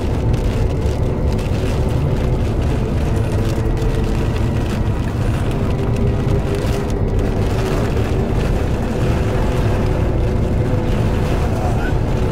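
Car driving down a road, heard from inside the cabin: a steady low rumble of engine and tyres with a few faint steady hum tones.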